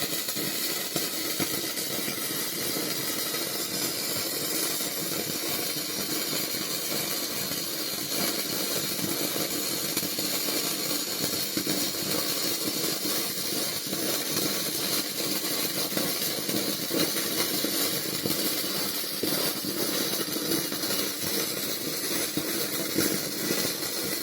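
ANDELI wire-feed (MIG) welder's arc burning steadily as a bead is run along a 2mm steel lap joint: a continuous frying crackle that starts and stops abruptly.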